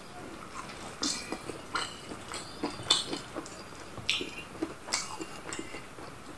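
Close-up mouth sounds of a man chewing a soft omelette with his mouth open: an irregular run of wet smacks and clicks, the loudest about three seconds in.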